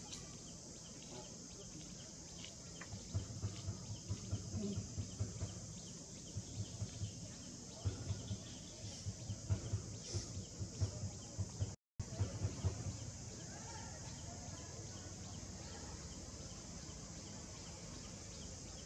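Outdoor ambience with a steady, high insect chorus. Irregular low thumps come in clusters from about three seconds in to about thirteen seconds in, and they are the loudest sound. The audio drops out for a moment just before twelve seconds.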